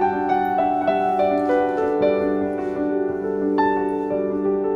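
Background music led by piano, a gentle melody of held notes over a steady low note.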